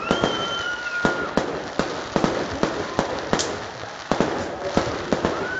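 Fireworks going off: a rapid, irregular string of sharp bangs, about two to three a second, with a short rising whistle about three and a half seconds in.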